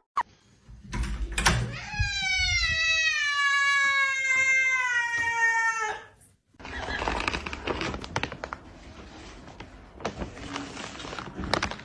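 A cat giving one long drawn-out meow lasting about four seconds, slowly falling in pitch. After a brief gap it is followed by quieter scattered clicks and rustling.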